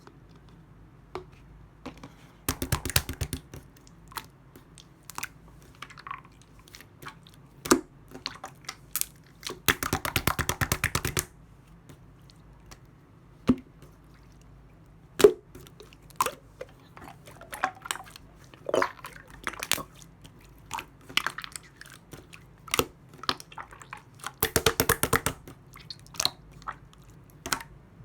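Clear slime being pressed and squished by hand: scattered sticky pops and clicks, with three runs of rapid crackling air-bubble pops, about 3, 10 and 25 seconds in.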